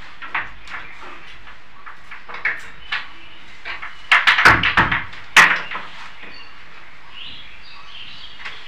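A series of sharp knocks and heavy thumps, sparse at first, then a dense cluster about halfway through. Faint high chirps follow near the end.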